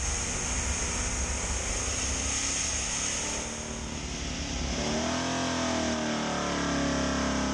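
Chevrolet SB2 small-block V8 race engine running steadily on a dyno. About five seconds in, the low rumble eases and pitched tones that rise and fall come in.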